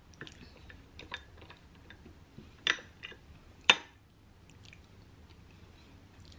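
Metal spoon clinking and scraping against a small textured glass bowl while scooping yogurt and granola, with light taps and two sharp clinks about two and a half and three and a half seconds in, the second the loudest.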